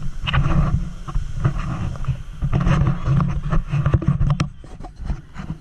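Handling noise from a handheld camera swung about while walking: rubbing and knocking on the microphone over a heavy low rumble, which thins out about four seconds in.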